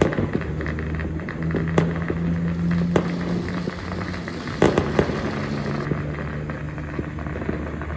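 Fireworks and firecrackers going off, a continuous crackle broken by sharp bangs about two and three seconds in and a cluster near the five-second mark, over a steady low hum.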